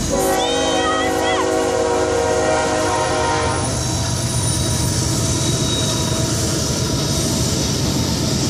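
Diesel freight locomotive's air horn sounding one long chord for about three and a half seconds at the grade crossing, then the locomotive and cars rumbling steadily past with wheel noise.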